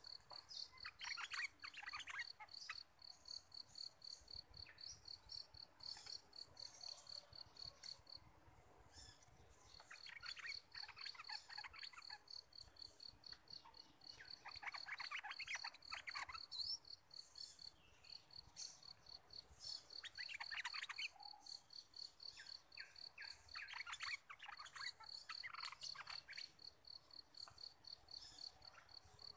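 Bulbul song: short chirpy phrases, about five bursts a few seconds apart, over a steady, fast-pulsing high insect trill that breaks off briefly about a third of the way in.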